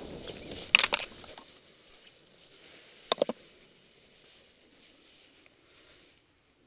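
Wind rushing over the microphone dies away in the first second as the paraglider comes down. A few sharp clicks and knocks follow about a second in, and two or three more about three seconds in, from the camera and paragliding harness gear being handled. After that there is only faint rustle.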